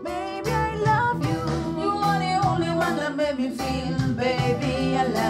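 A song playing: a voice singing a melody over instrumental backing with steady bass notes.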